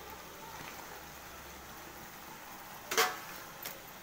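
A slotted steel ladle knocking against a metal kadai once about three seconds in, a sharp clink, with a lighter tap just after, over a faint steady background.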